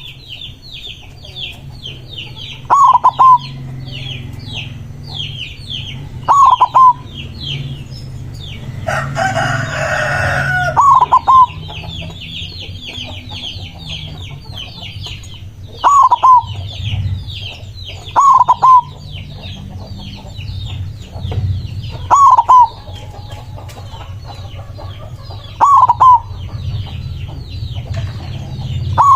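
White zebra dove (perkutut) singing: a loud, short two-note coo that repeats about every three to four seconds. Behind it there is constant fast, high chirping from other birds. About nine seconds in comes a longer, rougher call.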